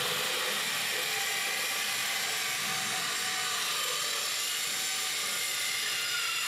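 DUALSAW CS 450 circular saw, its two counter-rotating tungsten carbide blades cutting through a threaded solid steel rebar rod: a steady, high grinding whine that runs on without a break.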